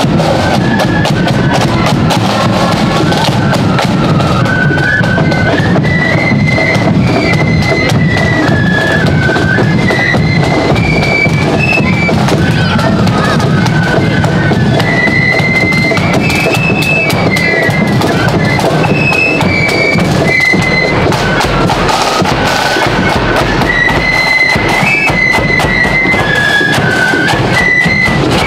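Marching flute band playing a tune on high flutes over side drums and bass drum, the melody stepping up and down without a break.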